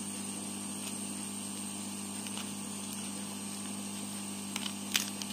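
Steady electrical hum with a faint high whine, and a few small sharp clicks near the end as a plastic card is worked under the corner of a Redmi Note 7's glass back panel.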